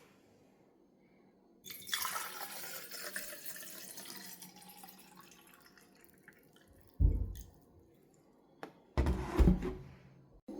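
Water running for a few seconds, fading away, then two dull thumps.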